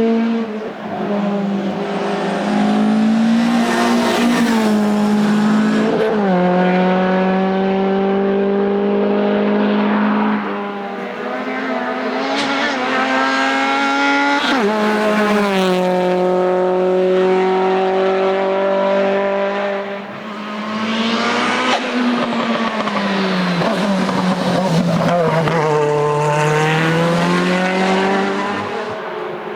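Hillclimb race car engines under hard load, running at high revs. The pitch holds and then shifts abruptly several times at gear changes.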